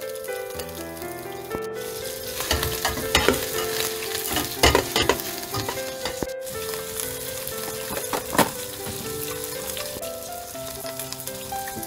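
Leaves and then sliced button mushrooms sizzling in hot oil in a stainless steel pot, stirred with metal tongs that clink against the pot several times, mostly in the middle. Background music with sustained tones plays underneath.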